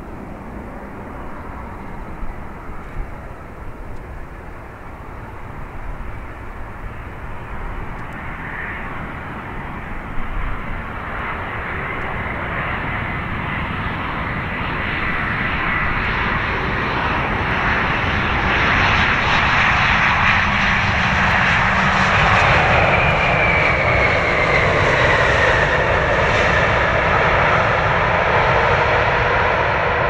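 Jet airliner's engines growing steadily louder as the aircraft comes closer, with a whine that slides down in pitch in the last third as it passes.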